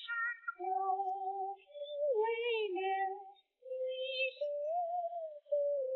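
Background music: a slow melody of long held, slightly wavering notes in short phrases, like a woman singing.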